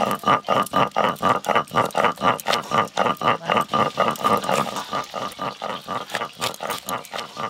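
An animal calling in a fast, regular series of pulsed calls, about four or five a second, on a steady pitch.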